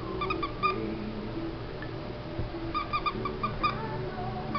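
Whoodle puppy giving short, high-pitched yips: a few just after the start and a quick run of about six around three seconds in.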